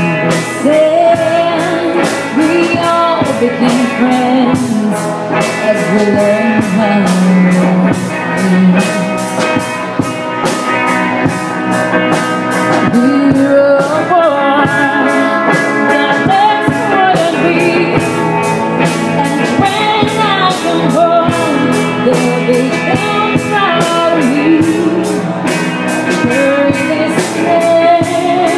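Rock band playing live: a woman singing over electric guitar, bass and drums, with a steady beat.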